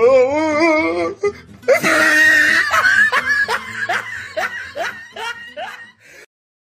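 People laughing hard: a long wavering laugh first, then a run of laughing bursts about two a second that fade away, with music underneath. The sound cuts off near the end.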